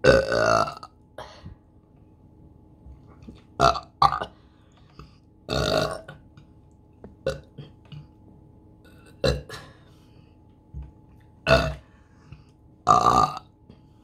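A woman burping repeatedly: about eight burps, some short and some drawn out, spaced one to two seconds apart.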